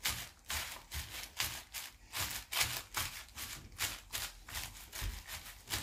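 Thin plastic bag crinkling in irregular bursts, a few times a second, as hands wrap and press it around a ball of pastry dough.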